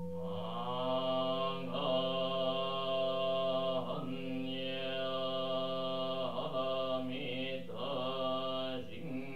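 A Jōdo Shinshū Buddhist priest chanting a sutra solo, holding long, drawn-out notes at a near-steady pitch with brief breaks for breath.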